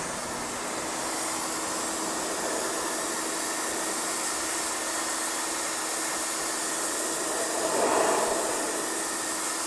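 Lutian LT501-1800A electric pressure washer running, its high-pressure water jet hissing steadily as it blasts old paint off a silicate-brick wall, under a faint steady hum. The sound swells briefly about eight seconds in.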